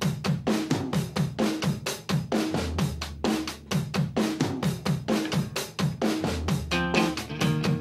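Background music: a steady drum-kit beat over a moving bass line, with other pitched instruments joining near the end.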